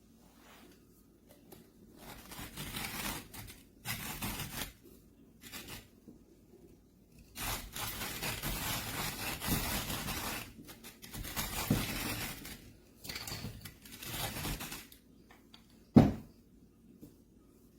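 Irregular bursts of scraping and rustling, the longest about three seconds, with one sharp knock near the end.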